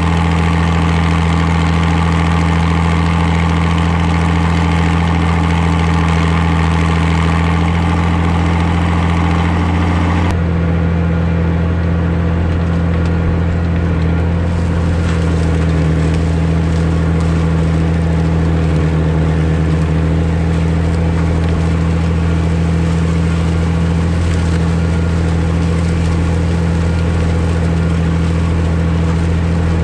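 Farmall 560 diesel tractor's six-cylinder engine running steadily while pulling a disk through corn stalks. About ten seconds in, the higher-pitched noise drops away suddenly while the engine's steady drone carries on.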